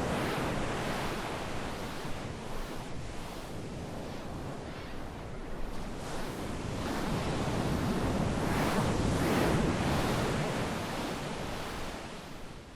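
A rushing, surf-like whooshing noise with no tone to it, slowly swelling to its loudest a little past the middle and dying down near the end.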